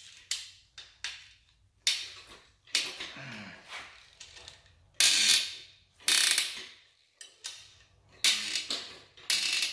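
Socket ratchet clicking in repeated short bursts as connecting-rod cap bolts on a Chevy Colorado 2.8 short block are turned through their final angle tightening, the bolts lubed. The loudest strokes come in the second half.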